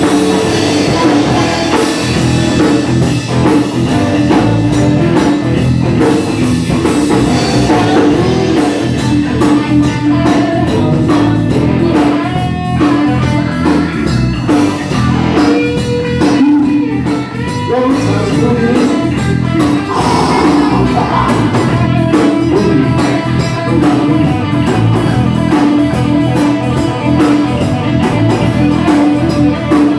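Rock and roll band playing an instrumental stretch: guitar over a drum kit beat, continuous and loud.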